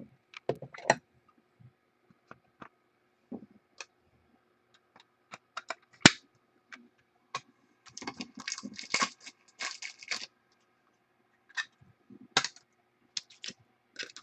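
Scattered small plastic clicks and rustles of trading cards being handled and fitted into hard plastic card holders, with one sharp snap about six seconds in and a longer stretch of rustling around eight to ten seconds in.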